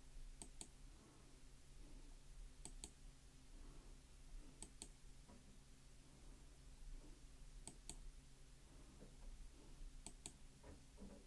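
Faint clicks in pairs, five pairs a couple of seconds apart, from a computer being worked to scroll down a document, over a low steady hum.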